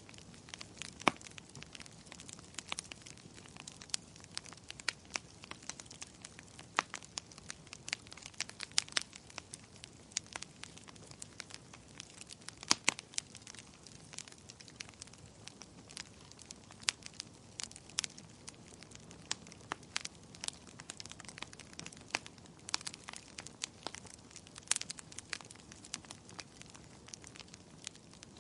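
Wood fire crackling: irregular sharp pops and snaps, several a second, over a faint steady hiss.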